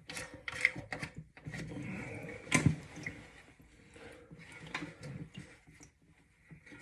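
Scattered clicks and knocks of toilet-tank parts being handled, with one sharper knock about two and a half seconds in.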